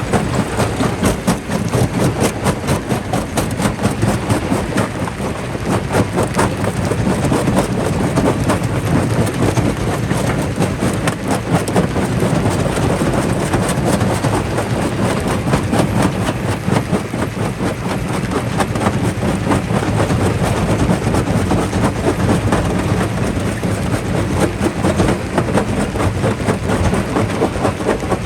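Jaw rock crusher running under load, breaking stone. A steady heavy machine noise with a dense, continuous clatter of cracking and knocking rock.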